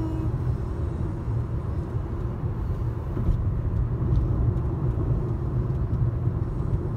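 Car driving at speed on a highway, heard from inside the cabin: a steady low rumble of road and engine noise.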